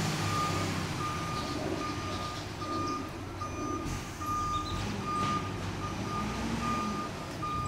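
Vehicle reversing alarm beeping at one steady pitch, a little more than once a second, over the low steady rumble of an engine.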